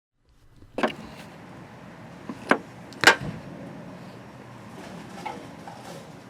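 A few sharp clicks and knocks, such as tools and hands handling parts in a car's engine bay, over a steady low background hiss. The knock about three seconds in is the loudest.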